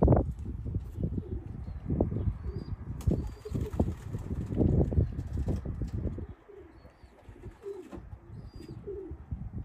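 Racing pigeons cooing and flapping their wings, over irregular low thumps that die down after about six seconds. A few faint small-bird chirps come through above.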